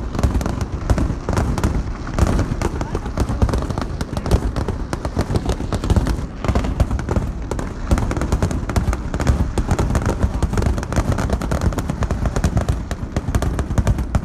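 Fireworks display: a dense, unbroken run of bangs and crackles from shells going off one after another.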